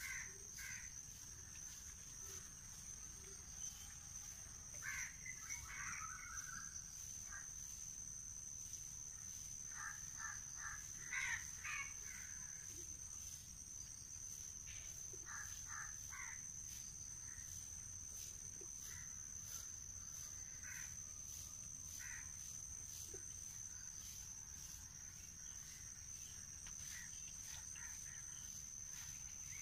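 Outdoor ambience: a steady high insect drone, with birds calling in short bursts of several notes every few seconds.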